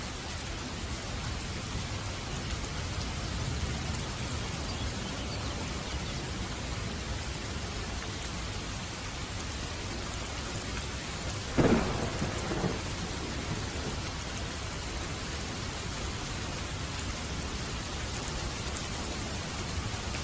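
Steady rain hiss throughout, with one sudden loud thunderclap a little past halfway that trails off over about a second.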